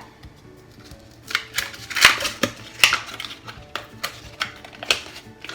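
Kitchen utensils clinking and knocking against dishes, with a short scrape about two seconds in, while cheesecake filling is being prepared. Soft background music runs underneath.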